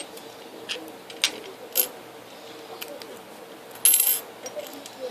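Scattered light clicks and taps of small hard plastic toys being handled and set down on a hard surface, with a louder cluster of clatter about four seconds in.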